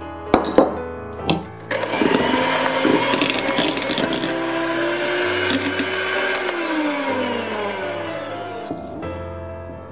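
A few knocks against the glass bowl, then an electric hand mixer whirring as its beaters whip butter into pastry cream for praline mousseline. Near the end the motor's pitch sinks as it slows and stops.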